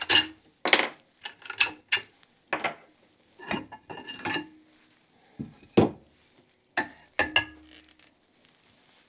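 Metal clanks and clinks from a motorcycle shock spring compressor being taken apart, as its steel plate and tube posts knock together and the rear shock is lifted out. About a dozen separate knocks, a few with a short ring.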